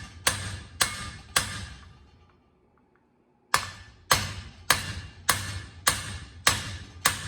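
Hammer tapping a pilot bearing installer tool, driving the pilot bearing into the back of the crankshaft with even, ringing metallic taps about two a second. The taps pause for about two seconds, then start again.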